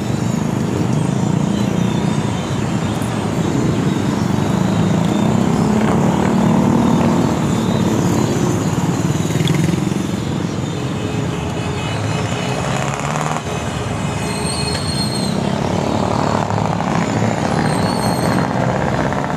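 Steady rush of riding noise: wind buffeting a handlebar-mounted phone's microphone, mixed with the engines of motorcycles riding alongside.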